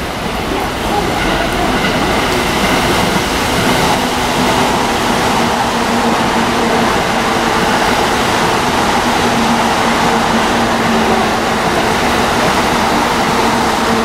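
JR East E531 series electric train passing along the Joban Line tracks. It gets louder over the first few seconds, then holds a steady rumble with a steady hum.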